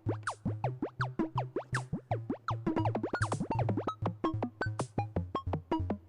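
Background music: a quick synthesizer tune of short notes, many sliding down in pitch, over a pulsing bass line.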